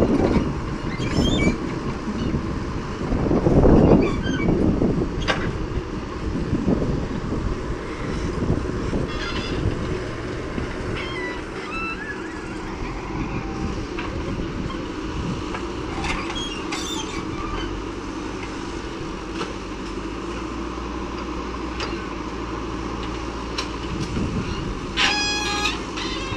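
Diesel engine of a JCB backhoe loader running steadily while it digs soil, with tractor engines running alongside. Rushing noise in the first few seconds, and a brief high toot near the end.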